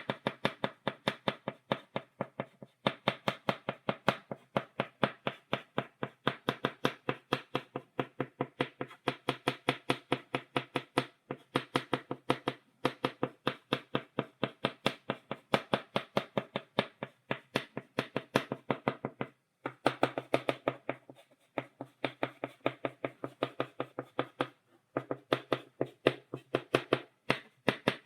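Chalk tapped rapidly on a blackboard, stippling dots: a steady run of sharp taps, several a second, broken by short pauses about three times.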